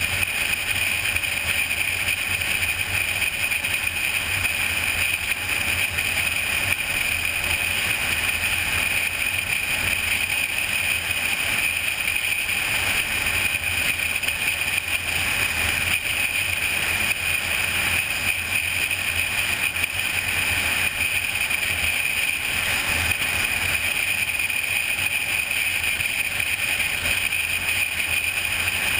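Steady wind and road noise of a car cruising at highway speed, picked up by a GoPro Hero2 mounted on the hood.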